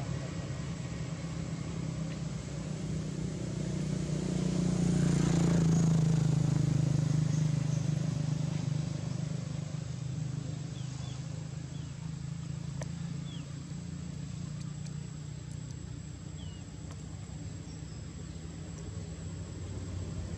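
Low, steady motor-vehicle hum, swelling and fading as a vehicle passes about five seconds in.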